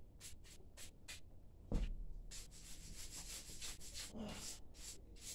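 A hand brush scrubbing caked dirt off a battery case in short strokes, quickening about two seconds in, with one knock just before.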